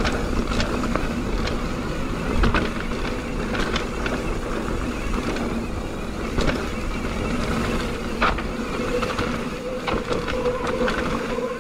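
Mountain bike riding fast down a dirt trail: wind rushing over the microphone, tyres rolling on dirt and the bike rattling, with several sharp knocks as it hits bumps.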